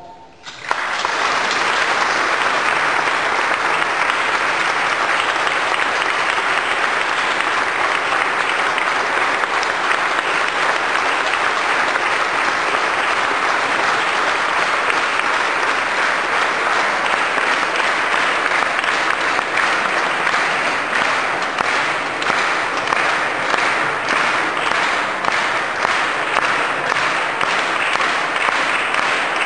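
Audience applauding at the end of a choir's song, the clapping starting about half a second in and staying dense and even; in the second half single claps stand out more.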